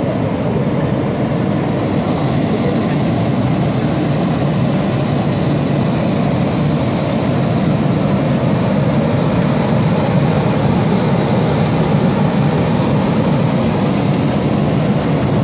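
Blower of an MF-300U multi-tensioning garment finisher running steadily, pushing air through a long-sleeve shirt clamped on the form during a finishing cycle. It is a loud, even rush of air, with a faint high whine joining about two seconds in.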